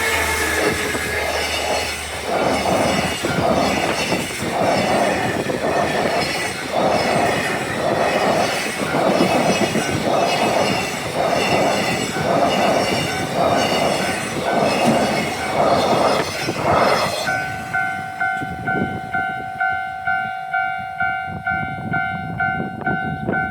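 A train passes over a level crossing with a rhythmic clatter of wheels over the rail joints. When it has gone, about three-quarters of the way through, the crossing's warning bell is left ringing in quick, even strokes, and it stops just before the end.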